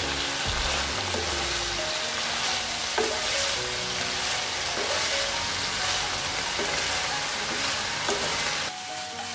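Boiled papaya flowers and vegetables sizzling in hot oil in a wok while a wooden spatula stirs and tosses them, with occasional knocks of the spatula against the pan. The sizzle drops a little near the end.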